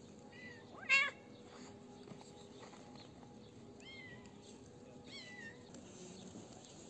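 Cats meowing as they are being fed: four short meows, the loudest about a second in.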